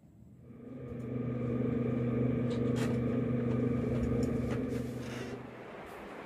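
A steady, low humming drone fades in during the first second, holds evenly, and fades away about five seconds in.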